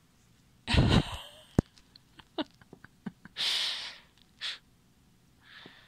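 Several breathy puffs of air close to the microphone, the loudest about a second in, with a few light clicks and taps between them.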